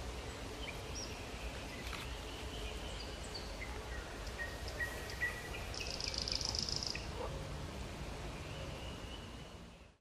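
Birds calling around a reedy pond: scattered short chirps and whistles, with a louder buzzy trill about six seconds in, over a low steady rumble of outdoor background noise. The sound fades out just before the end.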